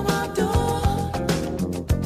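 Background music with a steady drum beat and a melody line.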